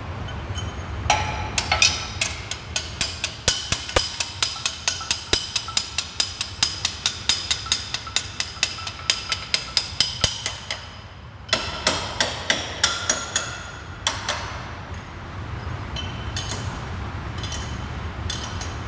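Rapid, evenly spaced metallic knocks, about three a second, ringing slightly, from work on a Sulzer weaving machine. They stop a little past halfway, start again for a few seconds, then give way to a steady low machine hum.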